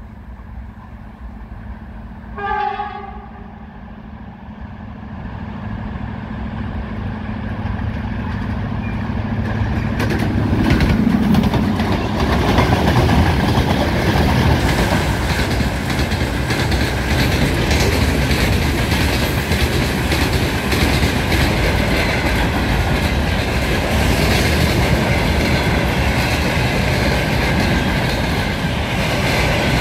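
A freight train hauled by ER20CF and TEM-LTH diesel locomotives approaches: one short horn blast about two and a half seconds in, then the locomotives' engine hum and rumble build and pass about ten seconds in. The freight wagons follow, rolling by with steady wheel rumble and clickety-clack over the rail joints.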